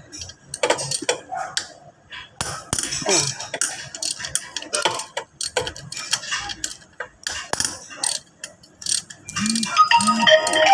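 Hand tools working on a Yamaha Mio i125 scooter engine as it is taken apart: irregular metal clicks, ticks and clanks of wrenches on bolts and parts. About a second before the end, a ringing tone with several pitches sounds.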